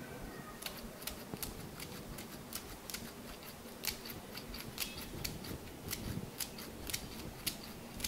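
Scissors snipping fresh betel (paan) leaves into small pieces, a quick run of crisp snips at about three a second.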